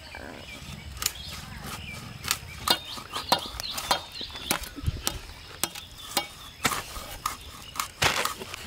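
Irregular sharp cracks and clicks, a dozen or more, as scaled chunks of a giant catla carp are pushed through bonti blades (curved blades fixed on wooden blocks), with a dull thud about five seconds in.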